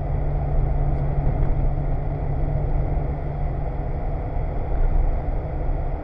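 BMW E30 rally car's engine running at steady revs under way, with tyre and road noise on a wet road, heard from inside the cabin.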